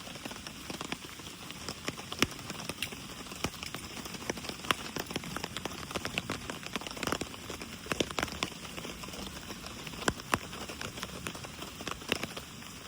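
Rain falling steadily, with many individual drops striking close by as sharp ticks over a constant patter.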